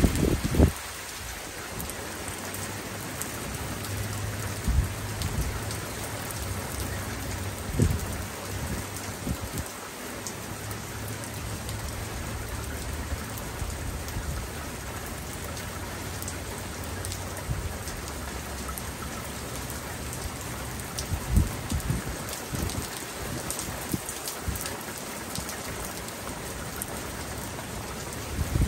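Steady rain falling and pattering on surfaces, with a few sharp low knocks scattered through it and a faint low rumble under the rain for much of the middle.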